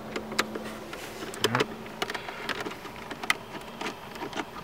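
Phillips screwdriver unscrewing a screw from a car's plastic centre-console side panel: scattered small clicks and ticks of metal on screw and plastic. A faint steady hum runs under it and stops about a third of the way in.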